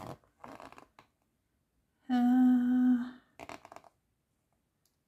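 A person humming one steady note for about a second, after a short, soft rustle of paper.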